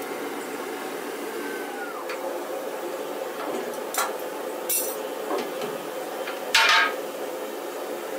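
Portable yoke riveter setting a red-hot rivet in a riveted steel girder: a steady machine hum, a couple of sharp metal knocks about four seconds in, and a short loud noisy blast about six and a half seconds in, the loudest sound.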